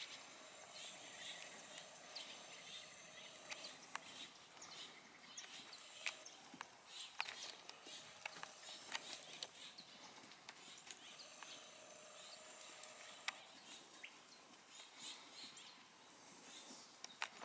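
Quiet outdoor ambience: a faint steady hiss with short high chirps and clicks scattered throughout.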